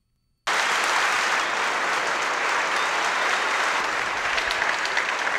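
Audience applauding, a dense steady clapping of many hands that starts suddenly about half a second in.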